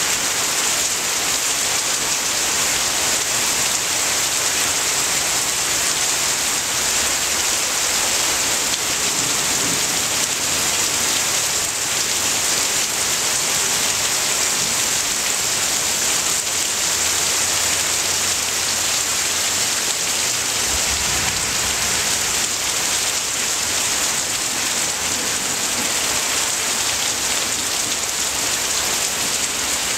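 Heavy downpour, rain pouring down in a steady, even hiss.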